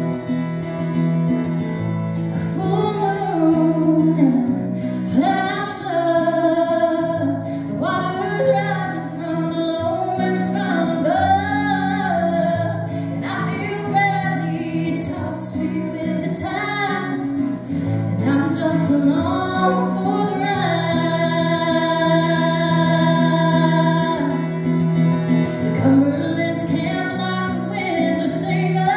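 A woman singing a song while strumming a plugged-in acoustic guitar, performed live, her voice holding long notes over steady chords.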